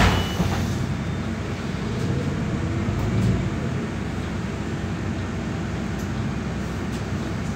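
Solaris Urbino 12 IV city bus on the move, heard from inside the cabin as a steady low rumble of engine and road noise, with a few faint clicks.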